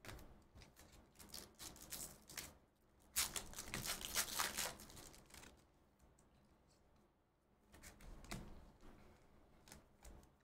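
Trading-card pack wrapper torn open and crinkled, with cards handled and slid against each other; the crinkling is loudest about three to five seconds in.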